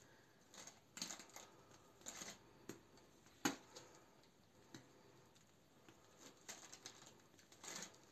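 Faint, scattered rustles and small clicks of a plastic piping bag being squeezed while cream is piped, with one sharper click about three and a half seconds in.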